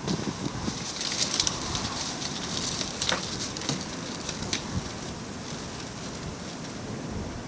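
Cats play-fighting: rustling and scuffling with scattered sharp clicks, busiest a second or two in.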